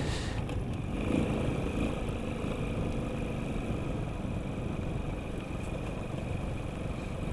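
Sanya X50 110cc motorcycle riding along at a steady speed, its engine running evenly under a dense rush of wind on the microphone and tyre noise from the dirt track.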